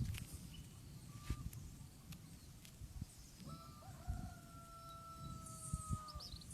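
A rooster crowing once, faint: one long drawn-out call beginning about three and a half seconds in and held, falling slightly in pitch. A few faint low knocks sound around it.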